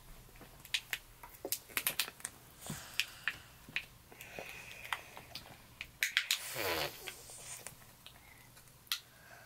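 Close-up wet mouth sounds of children eating jello: sharp sticky lip smacks and clicks, with a longer squelchy slurp falling in pitch a little past six seconds in.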